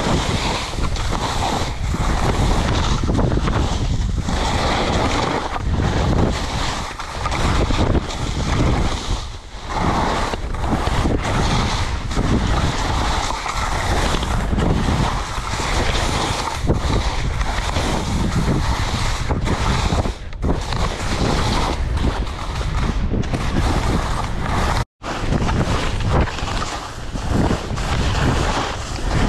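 Wind rushing over an action camera's microphone, mixed with skis carving and scraping through soft spring snow: a steady rushing noise that swells and dips through the turns. It cuts out for an instant about 25 seconds in.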